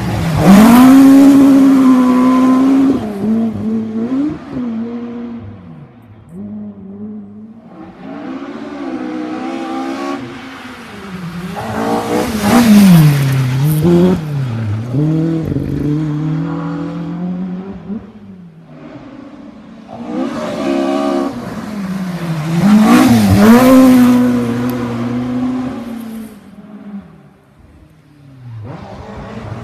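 Ford Escort Mk2 RS rally car driven hard, its engine revving with the pitch climbing and dropping through the gears. It comes up loud three times, about a second in, near the middle and again about two-thirds through, fading away in between.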